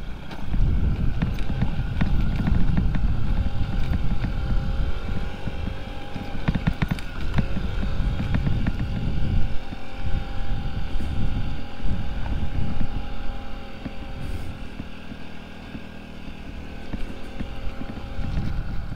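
Honda Ruckus scooter's 49 cc single-cylinder four-stroke engine running steadily, with wind buffeting the microphone. The rumble eases off about halfway through while the engine note carries on.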